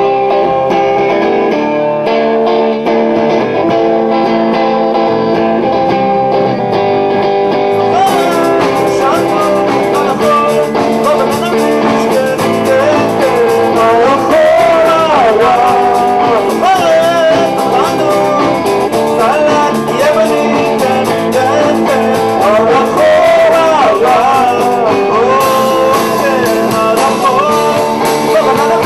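Rock band playing live, with electric guitars to the fore. A man sings lead over it from about eight seconds in.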